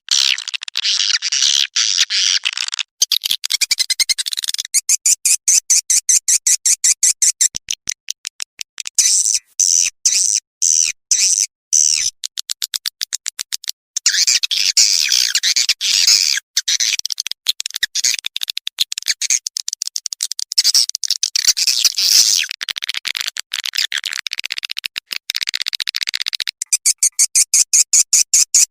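Recorded swiftlet calls used as a lure for swiftlet houses: edible-nest swiftlets twittering in fast trains of sharp, high chirps and clicks, broken now and then by brief pauses.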